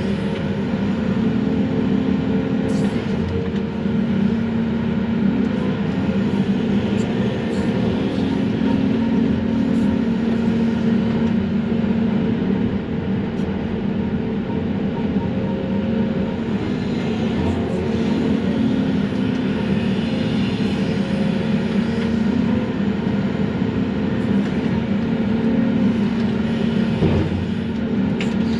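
Volvo excavator's diesel engine and hydraulics running steadily, heard from inside the cab while the grapple works brush. Its pitch shifts slightly now and then as the hydraulics take load, with a few faint clicks.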